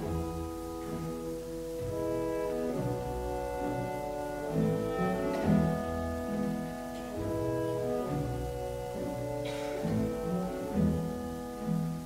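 Classical instrumental background music, with several notes held together.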